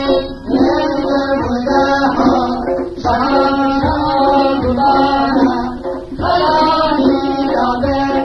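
Kurdish folk music recording: a melodic instrumental passage over a regular drum beat.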